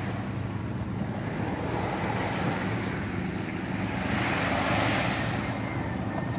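Sea waves washing onto the shore, with wind rumbling on the microphone; the surf swells louder about four seconds in.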